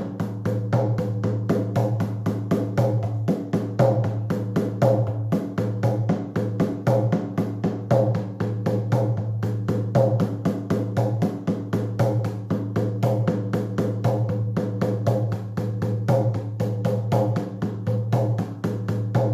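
A drum beaten in a fast, steady, unchanging beat, several strokes a second, with a low ringing hum underneath: shamanic journey drumming meant to induce a trance.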